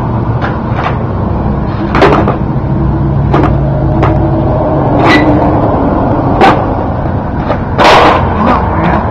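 Skateboard deck and wheels smacking down on concrete during flatland tricks: about nine sharp clacks at uneven spacing, the loudest a cluster about eight seconds in, over a steady low rumble.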